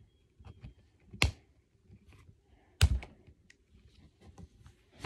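Plastic clicking and small crackles as fingers pry at the seam of a plastic toy surprise egg, with two sharp snaps about a second and a half apart.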